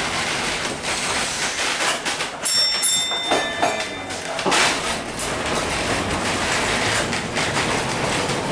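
A 1906 John Stephenson streetcar rolling along the track, heard from inside the car: a steady running rumble with irregular clacks and rattles from the wheels and the wooden body. About a third of the way in there is a brief thin high squeal.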